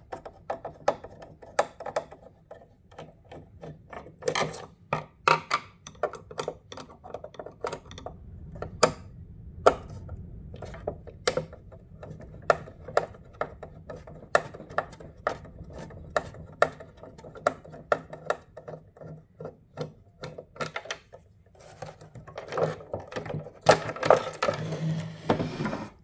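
Irregular clicks, taps and knocks of a Torx driver and fingers working on the hard plastic of a xenon headlight housing as the igniter's screws are undone. A denser rattle of handling comes in the last few seconds as the igniter is lifted out.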